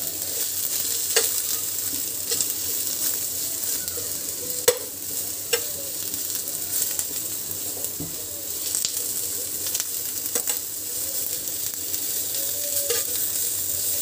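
Sliced onions sizzling in a little oil in a frying pan, a steady hiss, while a spatula stirs them, scraping and tapping the pan every second or two.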